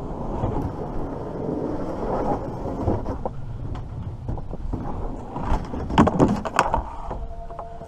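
Low rumbling wind and water noise on an open-air microphone aboard a kayak, with a quick run of sharp knocks about six seconds in and a brief two-note tone near the end.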